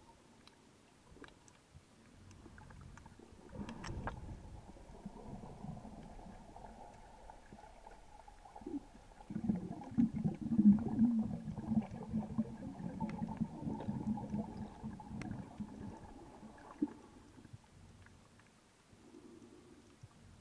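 Muffled underwater sound picked up by a camera held under the sea surface: low gurgling and rumbling water noise that swells about a third of the way in, is loudest through the middle, and fades near the end.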